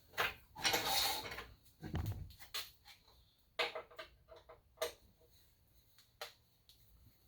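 Storage tray being taken off a miter saw stand: irregular clicks and knocks of handling, with a short scrape about a second in and a duller knock about two seconds in.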